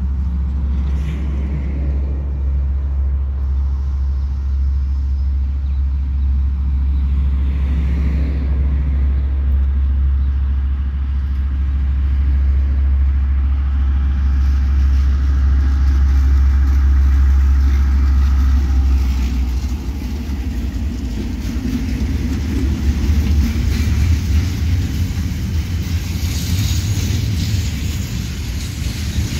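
Two KiwiRail diesel locomotives hauling a container freight train approach and pass, their engines a steady low drone that grows loudest just past the middle. After that the wagons roll by with a rougher rumble and wheel clatter that gets sharper near the end.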